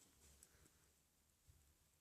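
Near silence: room tone with faint low hum and a few tiny soft ticks.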